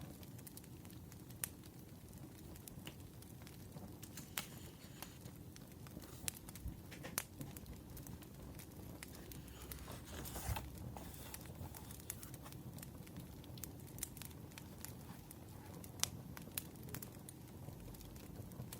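Wood fire crackling faintly, with irregular sharp pops over a low steady bed, and a short rustle about ten seconds in.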